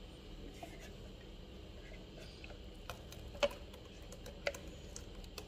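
Faint, scattered clicks and taps as thick ground green gram paste is scraped out of a steel mixer-grinder jar into a non-stick pan. The sharpest tap comes about three and a half seconds in.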